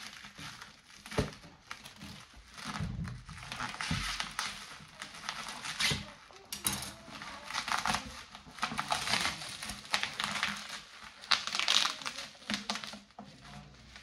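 Parcel wrapping crinkling and rustling in irregular bursts as it is pulled off by hand.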